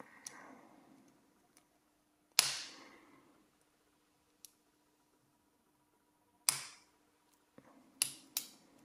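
Sharp clicks and two loud snaps, about four seconds apart, from tools working at the retaining clip on the back of a Yale-type night-latch lock cylinder, trying to get the clip off.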